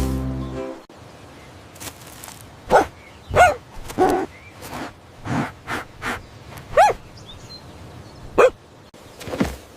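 A dog barking in seven or eight short single barks at uneven intervals, after a bit of music cuts off in the first second.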